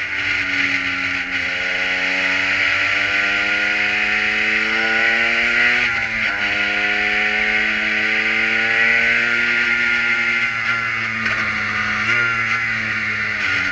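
Kohler engine of an open-cockpit prototype race car under acceleration, its pitch climbing steadily, dropping sharply about six seconds in, then climbing again before levelling off and dipping near the end. A heavy rush of wind and wet road noise runs over it.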